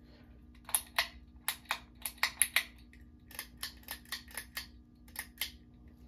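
Hands rummaging through packing in a cardboard box: a quick, irregular run of sharp clicks and crackles from a clear plastic bag and the parts inside, thickest about two seconds in.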